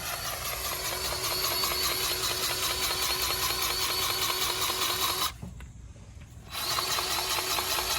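Battery-powered grease gun motor running with an even pulsing as it pumps grease into a grapple's lube fitting; it stops for about a second a little past halfway, then starts again.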